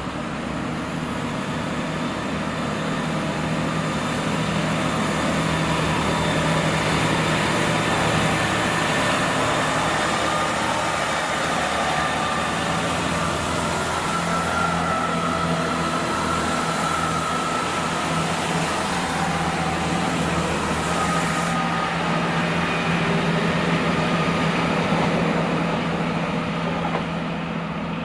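Diesel train running at the station, a steady engine drone with train noise that builds over the first few seconds and then holds.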